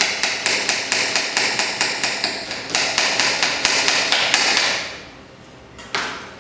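Chef's knife chopping a red onion on a plastic cutting board: fast, even knocks of the blade on the board, about five a second, fading out about five seconds in, then one lone knock.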